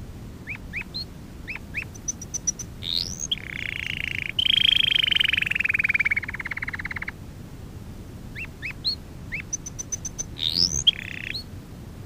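Domestic canary singing. Short rising chirps and a quick run of high ticks lead into a long rolling trill, which slides lower and breaks into a fast stuttering rattle. After a pause the phrase starts again, with chirps and a shorter trill near the end.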